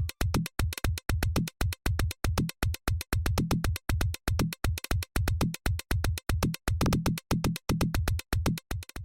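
Electronic background music with a fast, steady drum-machine beat and synthesizer.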